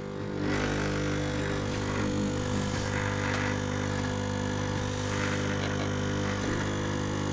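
Vibratory pump of a DeLonghi Dedica espresso machine buzzing steadily while pulling a shot, its power set by a light dimmer wired into the pump circuit. The buzz steps up in loudness within the first half second.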